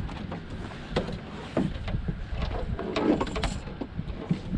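Scattered knocks and clatter of gear being handled in a fishing boat, over a steady low rumble.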